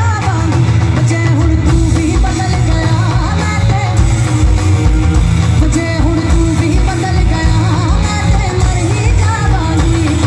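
Live band playing a song through stage PA speakers: a singer over electric guitar, keyboard and drums, with a heavy, steady bass beat.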